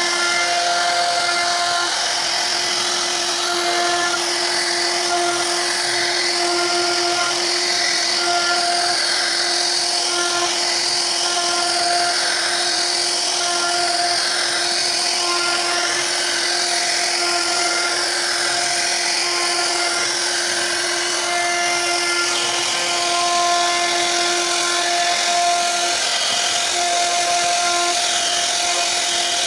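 CNC wood router spindle running steadily, its bit carving a wooden door panel: a constant whine over the hiss of cutting, with short higher tones coming and going.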